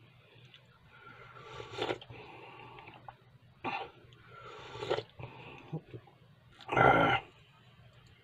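Slurping sips of tea from a glass mug, several in a row, with a loud, short throaty sound from the drinker about seven seconds in.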